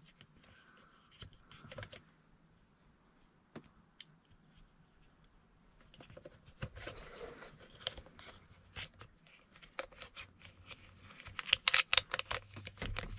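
Small plastic clicks, scratches and rustles from hands handling a removed car heater blower motor and its wiring lead. The clicks are sparse at first and come thick and fast near the end.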